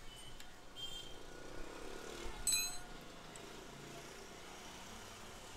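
Light metallic clinks of hand tools and engine parts as a scooter's cylinder head is worked on, with one sharper ringing clink about two and a half seconds in, over a faint low rumble.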